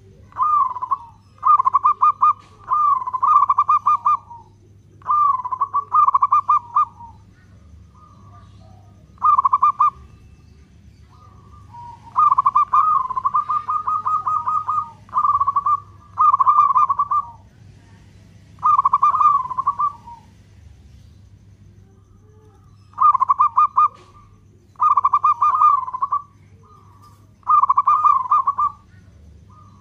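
Local zebra dove (perkutut) cooing: repeated rolling, trilled coo phrases, each a second or two long, with short pauses and a couple of longer gaps between them.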